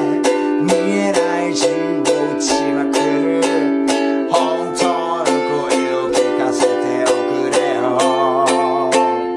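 A ukulele strummed in a steady rhythm, about two to three strokes a second, moving through the chords Em7 and A7, then F, G7, F and C, with a man singing the melody over it; near the end his voice wavers on a held note.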